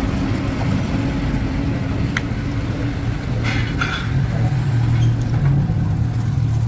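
A motor running steadily with a low hum, with a few brief clicks and scrapes over it.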